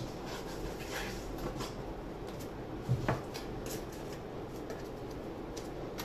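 Low, steady room noise with a few light taps and clicks, one a little louder about three seconds in.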